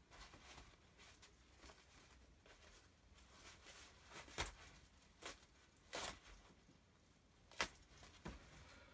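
A thin plastic bag being handled, giving faint crinkling with several short, sharper rustles.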